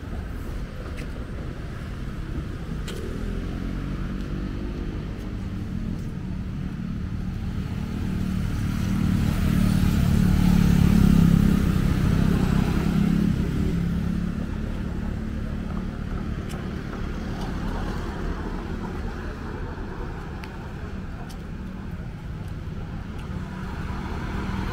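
Road traffic going by: cars and motorbikes passing. One vehicle's engine swells loudest as it passes close about ten seconds in, then fades back into the traffic.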